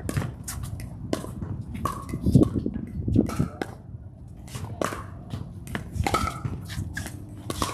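Pickleball rally: repeated sharp pops of paddles striking the hollow plastic ball at an irregular pace, mixed with players' footsteps on the hard court.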